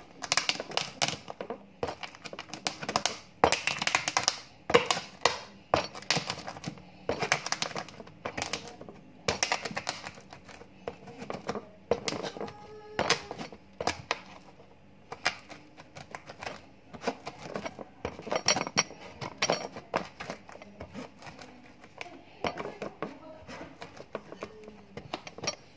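Black peppercorns being crushed on a cutting board with a stone pestle: irregular crunching and cracking, with knocks of the stone on the board, in short spells with brief pauses.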